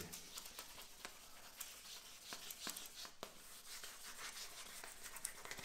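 Fine 2500-grit sandpaper rubbed by hand over a moped's fresh paint, in faint, irregular rubbing strokes: sanding out small defects in the new paint ahead of polishing.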